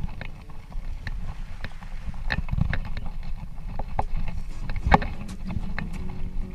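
Hybrid bicycle riding over a dirt woodland trail: a constant low rumble of tyres on the ground, with irregular rattles and knocks as the bike jolts over bumps, the loudest knock about five seconds in.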